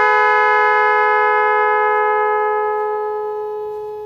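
Pair of 12-volt snail-type electric motorcycle horns, run from a digital 'magic horn' control box, sounding one long steady blast on two close pitches that slowly fades near the end.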